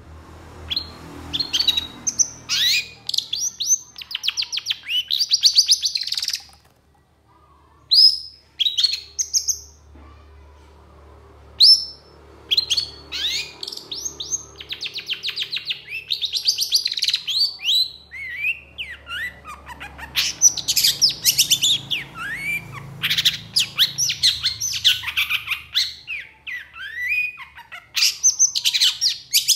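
Long-tailed shrike singing: fast rattling runs of repeated high notes mixed with short whistled slurs, with a brief pause about six seconds in before the song picks up again.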